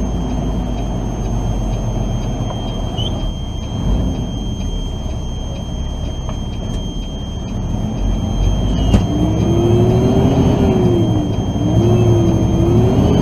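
Diesel engine of a semi truck heard from inside the cab, a steady low rumble. About eight seconds in, the truck picks up speed and the engine note rises, drops and rises again as it shifts up through the gears.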